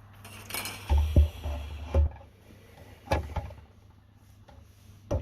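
Handling noises on a workbench: rustling and a few heavy knocks, then two separate sharp clicks, as tools and equipment are moved about.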